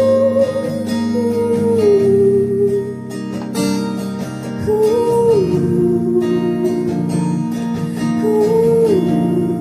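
Live acoustic band music: strummed acoustic guitar under a wordless sung melody of long held notes that slide down in pitch, three phrases in a row.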